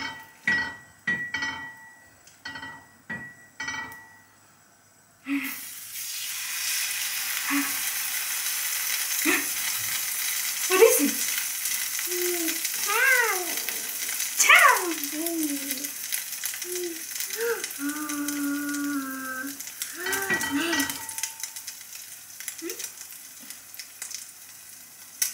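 Egg-soaked bread frying in butter in a hot frying pan. A steady sizzle starts suddenly about five seconds in, after a few light taps, and keeps going. A voice makes rising and falling calls over it.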